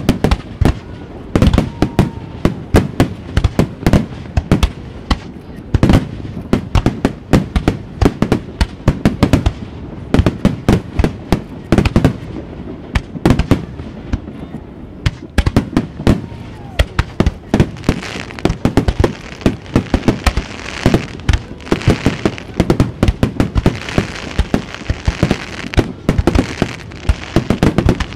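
Aerial fireworks shells bursting in quick succession, several bangs a second. From about two-thirds of the way through, a dense crackling joins the bangs.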